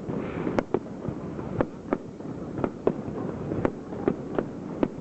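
Aerial firework shells bursting in quick, irregular succession: about a dozen sharp bangs over a continuous low rumble.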